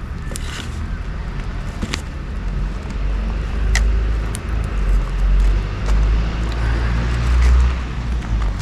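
Wood bonfire crackling with scattered sharp pops, over a loud low rumble that swells and fades.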